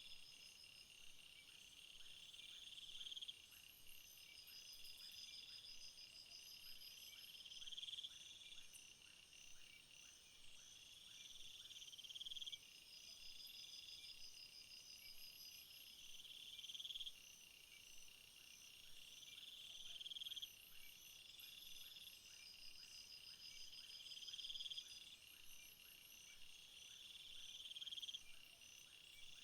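Faint chorus of crickets and other insects: a high buzzing trill swells and stops abruptly about every four seconds, over steady rapid chirping from other insects.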